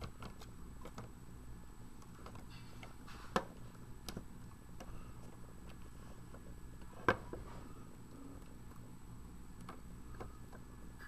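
Irregular light clicks and taps from handling a plastic trail-camera case and its rubber seal, over a low steady hum; the sharpest click comes about seven seconds in.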